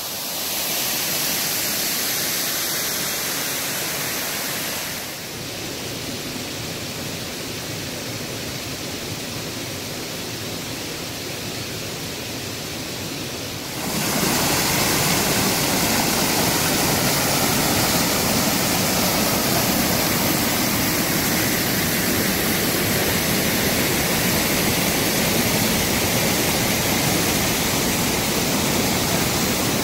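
Waterfalls and cascades of a rocky mountain stream rushing steadily over rock. The rush dips slightly about five seconds in, then grows louder about fourteen seconds in.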